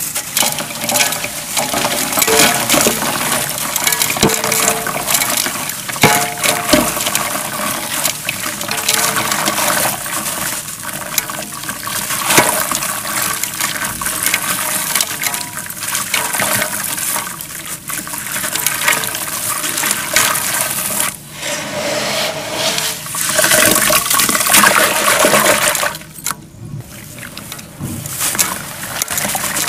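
Wet, gritty brown dirt being squeezed and crumbled by hand in a basin of foamy water: water sloshing and splashing, mixed with the crunch and crackle of grit breaking apart. It goes briefly quieter a little before the end.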